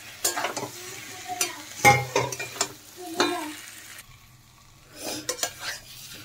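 Metal spatula stirring boiled new potatoes and eggs through thick spice paste in a metal kadai: scraping and clinking against the pan over light sizzling as they are sautéed in the masala. There is a short lull a little past halfway.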